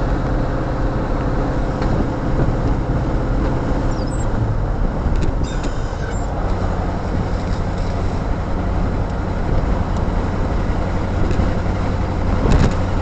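Pickup truck driving on the road, heard from inside the cab: a steady engine hum over road noise, the engine note dropping slightly about four seconds in.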